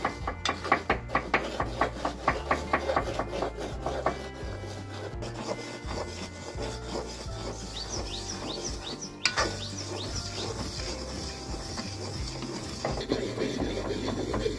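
Metal spatula scraping and stirring dry semolina in a large metal pan, a steady rasping rub. In the first few seconds a kitchen knife chops onion on a wooden board, about three strokes a second.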